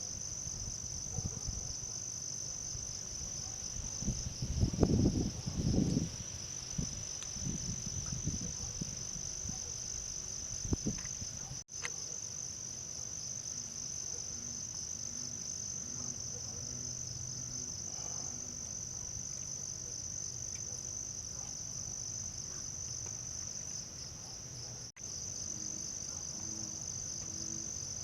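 Chorus of crickets trilling: a steady, shrill high note that never lets up. A few low rumbling thuds come about five seconds in and again near eleven seconds.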